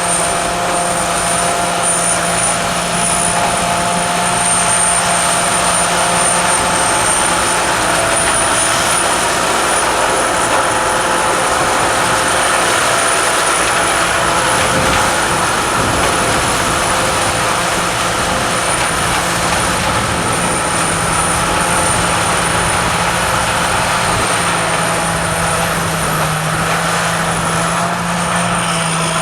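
Combine harvester running steadily under load, a continuous machine drone with a thin, steady high whine over it.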